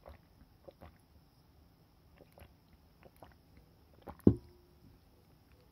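A drinking glass is set down on a cloth-covered table with one sharp knock about four seconds in, followed by a short ring. Fainter clicks and taps of handling come before it.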